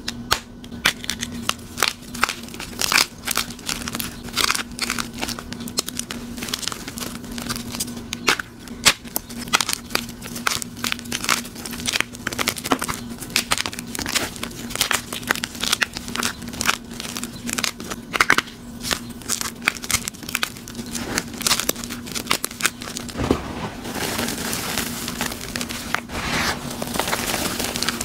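Fresh gym chalk block crushed and crumbled between bare hands: dense crunching and crackling of the breaking chalk. Near the end it turns to a steadier hiss of chalk powder squeezed and rubbed through the fingers, over a faint steady hum.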